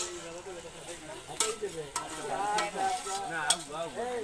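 A metal ladle stirring food in a large iron karahi over a fire, with a few sharp scrapes and knocks of the ladle against the pan.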